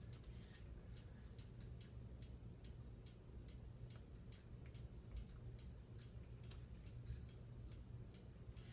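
Near silence: faint, even ticking about two and a half times a second over a low steady hum.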